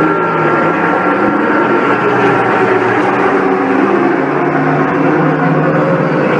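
Continuous loud din of racing motorcycle engines at the circuit, several engine notes overlapping and shifting in pitch, with no single bike standing out.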